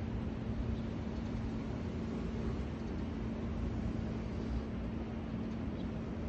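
Steady city traffic noise with a constant low hum.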